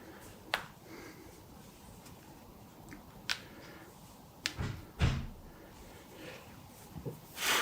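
Joints of the foot and ankle cracking under a chiropractic manipulation: a handful of separate sharp clicks spread over several seconds, with a heavier thud about five seconds in.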